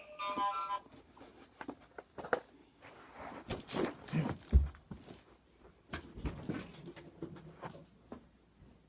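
Cardboard box and packaging being handled: scattered clicks, scrapes and knocks, with one heavier thump about four and a half seconds in.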